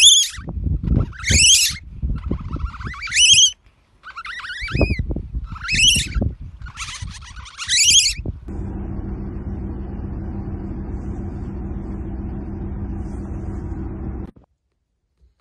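A Eurasian otter cub separated from its mother calling in a series of high, thin whistles, each rising then falling, about one every second and a half, over low wind rumble. After about eight seconds this gives way to the steady low drone of a ferry's engine, which cuts off suddenly near the end.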